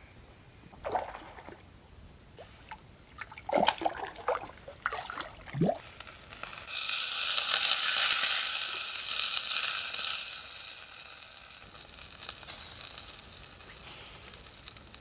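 A whole trout sizzling on the hot grill plate of a Firebox folding wood stove: a loud, steady hiss that starts about six and a half seconds in and slowly fades. Light clicks are heard near the end.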